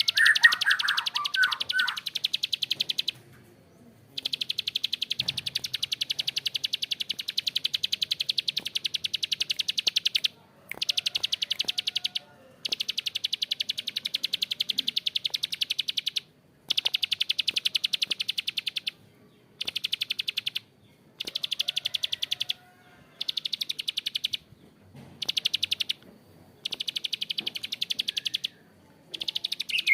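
A prinia (prenjak klik) singing its harsh, long rapid-fire clicking trill (ngebren), delivered in repeated bouts of a few seconds each with short pauses between. A few short chirps come at the start.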